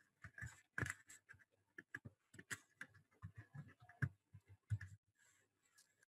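Faint, irregular short clicks of a computer keyboard and mouse for about five seconds, then they stop.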